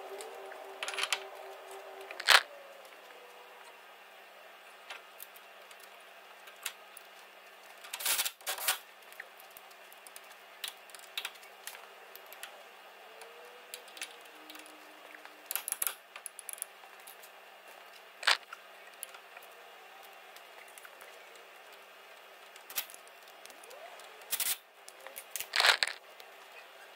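Scattered sharp metallic clicks and knocks of front brake parts being handled and fitted: new pads pushed into the caliper carrier and the caliper put back over the disc. The loudest knock comes about two seconds in, with further short clusters of clinks spread through the rest.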